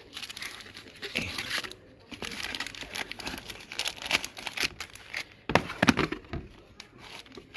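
Packaging crinkling and rustling as items are handled in the box, in irregular crackles with a louder stretch a little past halfway.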